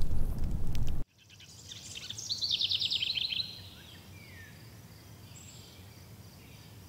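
A fire crackles loudly and cuts off abruptly about a second in. Then a willow warbler sings one song phrase, a run of quick high notes falling steadily in pitch for about two seconds, followed by a faint single down-slurred note over quiet outdoor background.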